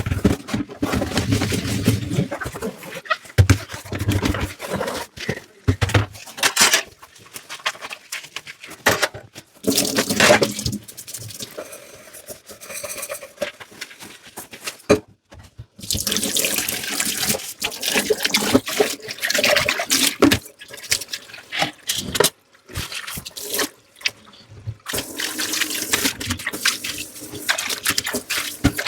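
Hand dishwashing at a kitchen sink: tap water running and splashing over dishes in stretches, with repeated clinks and knocks of crockery and cutlery being handled, and short pauses when the water stops.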